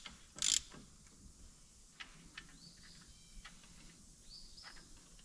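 Ratchet clicking as a thread tap is worked back and forth in the freshly drilled breather hole of the axle housing. There is one sharp metallic click about half a second in, then sparse faint clicks.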